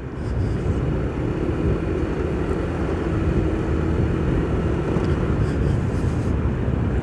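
Motorcycle riding along with its engine running and wind rushing over a helmet-mounted mic, a steady low rumble that grows louder in the first second.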